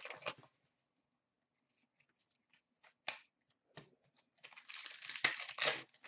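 A trading-card pack wrapper crinkling and being torn open, with a brief crinkle at the start, then a few light clicks and taps of cards being handled, then a longer stretch of crinkling and tearing near the end.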